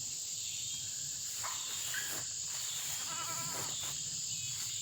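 Steady, high-pitched chorus of night insects chirring. A faint, brief wavering call comes in about three seconds in.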